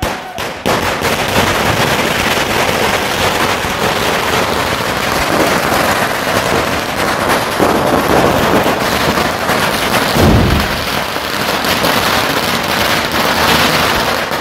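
A 30-shot firework cake firing on the ground: a dense, unbroken run of loud cracks and bangs, with a heavier bang about ten seconds in.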